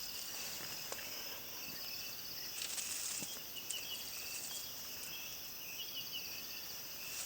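Insects trilling steadily outdoors, a high rapid pulsing with short chirps repeating over it, and a few faint clicks.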